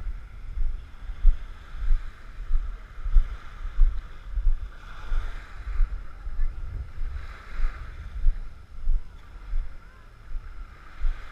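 Steady low thumps of walking steps jolting a handheld action camera, about three every two seconds, with soft washes of small waves on the shore swelling every few seconds.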